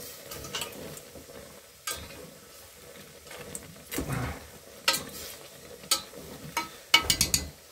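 A spoon stirring bone-in chicken in a pot on the stove, with irregular clinks and scrapes against the pot and a quick run of knocks near the end, over a faint sizzle from the cooking meat.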